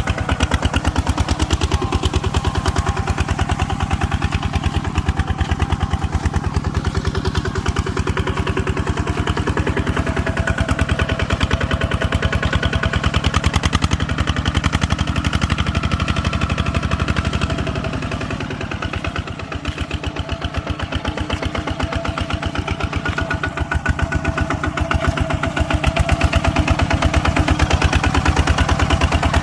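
Farm machine engine running steadily with a fast, even chugging beat, easing off briefly about two-thirds of the way through and then picking back up.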